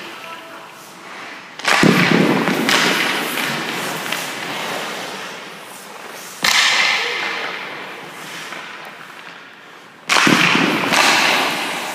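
Three sharp hockey-puck hits, about two, six and a half, and ten seconds in, each ringing on in the arena's long echo: shots fired at a goalie and stopped by his pads.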